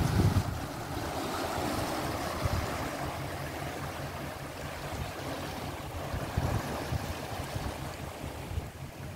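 Water rushing and churning as it is let through a canal lock gate into the next lock chamber, so that the water levels even out. The rush eases slowly.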